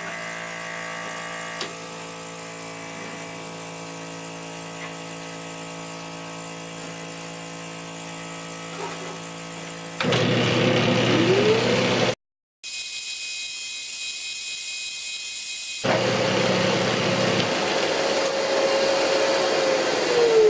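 Small 12V DC vacuum pump humming steadily. About ten seconds in, the Flatmaster drum sander's motor starts with a rising whine and runs loudly as the rough bandsawn panel is sanded. Near the end the motor winds down with a falling whine.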